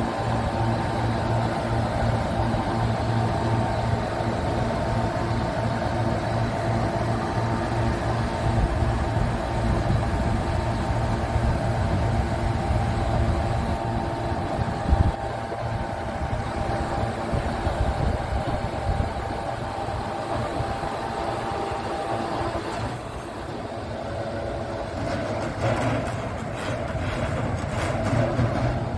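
Scania R truck's diesel engine running to drive the loader crane's hydraulics while the boom moves: a steady drone with several whining tones over it. About 23 seconds in the whining tones stop and the sound gets a little quieter, with a brief knock earlier, around the middle.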